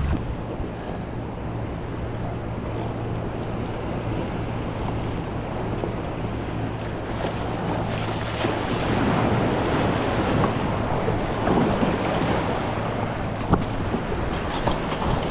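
Surf breaking and water washing around a kayak being paddled in through the shore break, with wind on the microphone. The splashing wash grows rougher about eight seconds in, and there is one sharp knock near the end.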